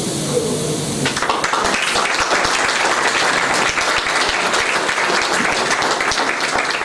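Audience applauding, the clapping breaking out about a second in and holding steady.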